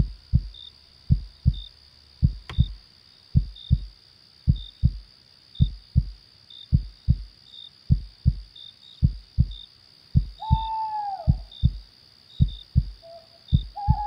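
Slow heartbeat thumping in lub-dub pairs, a little under one pair a second, over steady high cricket chirping. About ten seconds in, one short falling animal call sounds above them.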